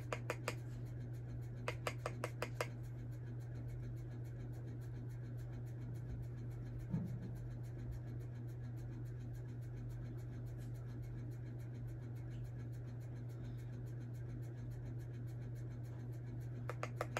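Steady low hum, with short runs of quick light taps or scratches, about six a second, near the start, about two seconds in and again at the end: a makeup brush being worked in a jar of loose setting powder.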